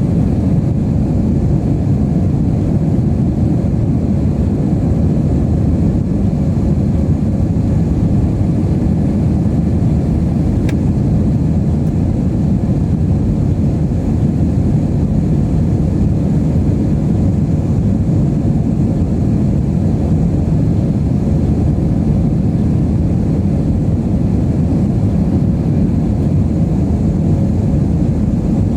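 Airbus A320-232 cabin noise in flight: the steady drone of its IAE V2500 turbofans and the airflow over the fuselage, heard from a window seat. A single faint click about ten seconds in.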